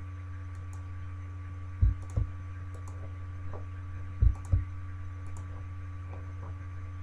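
Computer mouse clicks: two pairs of short, dull clicks, each pair about a third of a second apart, near two and four seconds in, over a steady low electrical hum.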